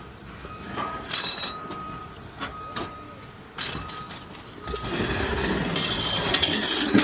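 Vehicle backup alarm beeping about once a second over engine noise and scattered metal knocks, with a louder rush of clattering noise building from about five seconds in.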